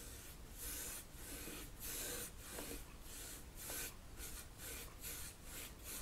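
A small flat synthetic paintbrush swishing back and forth across an oil-painted canvas, a run of soft strokes about twice a second.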